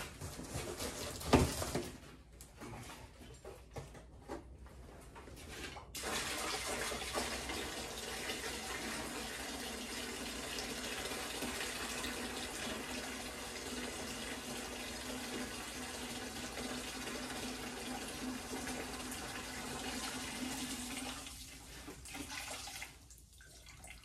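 Windshield washer fluid pouring from a plastic jug into a plastic bucket: a steady splashing stream that starts about six seconds in, lasts about fifteen seconds and tapers off near the end. A single sharp knock about a second and a half in.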